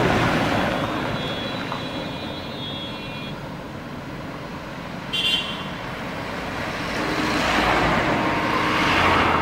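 Road traffic: vehicles passing on a city street, swelling as one goes by near the start and again toward the end, with a short horn toot about five seconds in.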